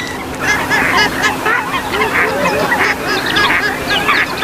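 A dense chorus of swamphens and moorhens, many short overlapping calls at once, with a faint steady hum underneath.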